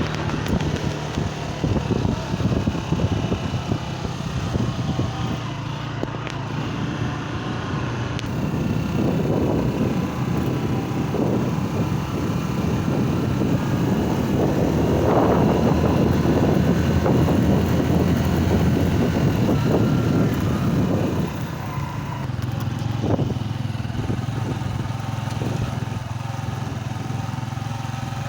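A small vehicle engine running steadily, with a louder rushing noise from about nine to twenty-one seconds in.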